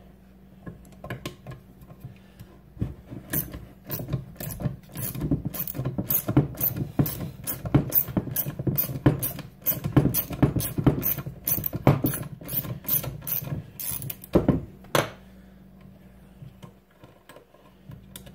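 Ratchet wrench clicking in a long run of quick strokes as it backs a hex bolt out of a circulator pump's housing; the clicking stops about fifteen seconds in.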